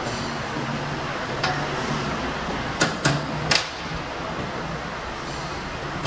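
Sharp metallic clanks from a hand-lever spring-coiling jig as steel rod is wound into a coil spring: one knock about a second and a half in, then three close together around the middle. A steady low machine hum runs underneath.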